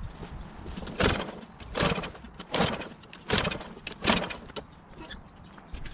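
Lawn-Boy push mower's recoil starter being pulled five times in quick succession, each pull a short whirring rush as the engine turns over without catching, even with Seafoam spray in the intake.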